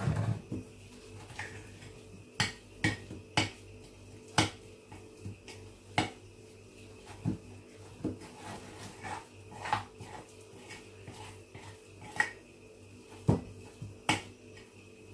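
Metal spoon clinking and scraping against a glazed ceramic bowl as a thick herbal paste is stirred and worked: a dozen or so sharp, irregular clinks, about one a second.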